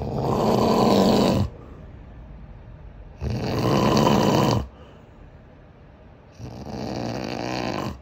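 A man snoring in deep sleep: three rumbling snores, each about a second and a half long, roughly every three seconds, with quieter breathing between. This is problem snoring, recorded for diagnosis and under specialist treatment.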